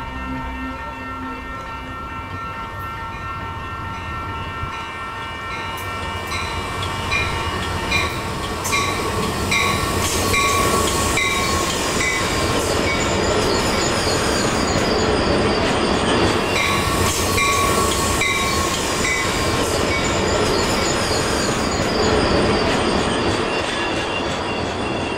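Train running on the rails: a steady rumble that grows louder after the first few seconds, with held steady tones over it and a regular clack a little over once a second in two stretches.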